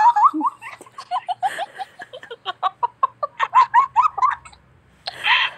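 A woman laughing in a long run of quick, high-pitched giggles, about four or five a second, that trails off after about four and a half seconds; another burst of laughter comes near the end.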